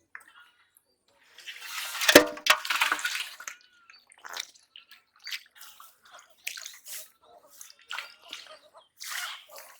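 Shallow water splashing and sloshing as hands grope for fish. There is a loud burst of splashing about two seconds in, then scattered small splashes and drips.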